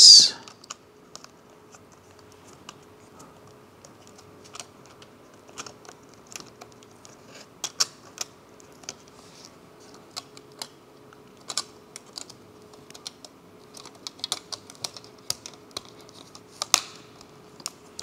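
Scattered light clicks and taps as fingers press the RAM cover plate back down into its clips inside an open HP EliteBook 845 G8 laptop, over a faint steady hum.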